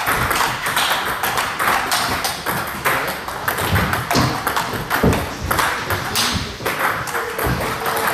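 Table tennis balls struck by a paddle and bouncing on the table in quick succession during forehand drill play: a dense run of light, sharp pings and taps.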